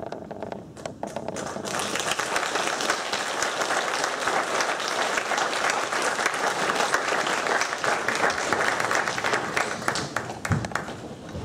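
Audience applauding: a few scattered claps, swelling into full applause about two seconds in and thinning out near the end.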